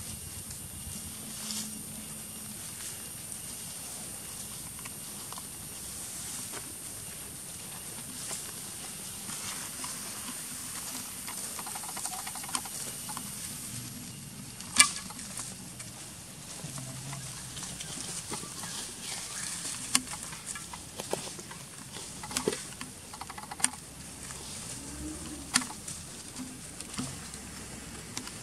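Macaques feeding on leaf-littered ground: scattered small clicks and rustles over a steady high hiss, with one sharper click about halfway through and a run of clicks near the end.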